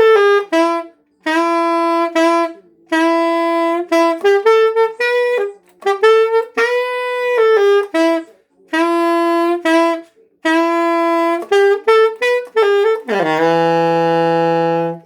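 Alto saxophone playing short jazz phrases with brief breaks between them, ending on a long held note about two seconds from the end.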